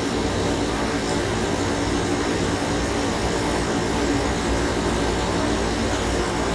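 Steady background hum and hiss: a constant low mechanical drone with even noise over it and no distinct events.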